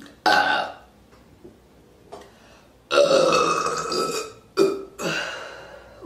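A woman burping deeply four times: a short burp just after the start, a long drawn-out one about halfway through, then two shorter ones close together near the end.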